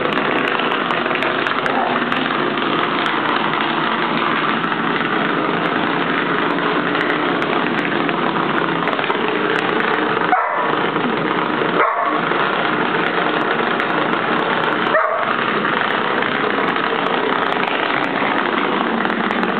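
Vibrating ladybug massager buzzing and rattling against a hardwood floor: a steady, loud buzz, broken briefly three times in its lower hum.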